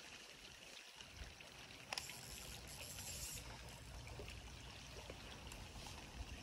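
Faint, steady trickle of a small creek's flowing water, with a single sharp click about two seconds in.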